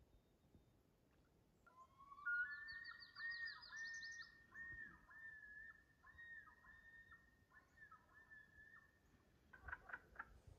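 Common loon calling across the lake: a rising whistled note, then a run of repeated wavering notes for several seconds, with a fast series of higher notes near the start.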